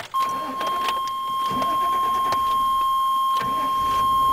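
A steady electronic beep: one unbroken high tone, with a few light clicks over it and a low rumble joining about three and a half seconds in.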